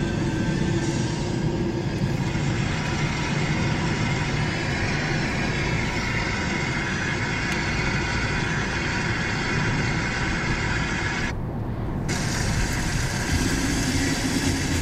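Steady road and engine noise of a car driving, heard from inside the cabin, with a low rumble.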